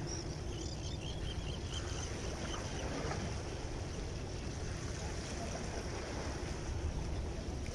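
Steady wind rumbling on the microphone over the wash of the sea against the breakwater rocks.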